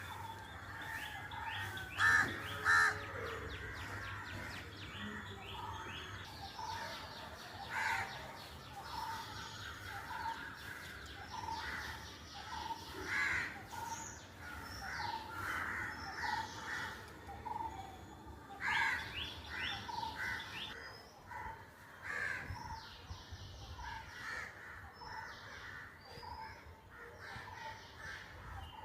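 Several birds chirping and calling together in a dawn chorus, with crows cawing among them. A few calls stand out louder, two close together about two to three seconds in.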